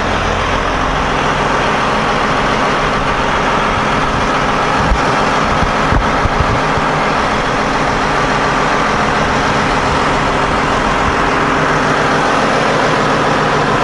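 Caterpillar 988H wheel loader's diesel engine idling steadily, heard from up on the machine, with a couple of short low thumps around the middle.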